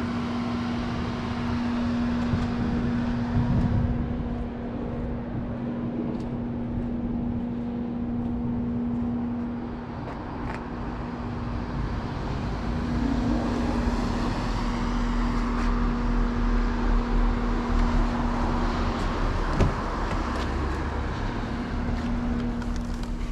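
Renault Mégane 4 RS with a catless exhaust, its 1.8-litre turbo four-cylinder running with a steady hum over road and cabin noise. It grows somewhat louder in the second half.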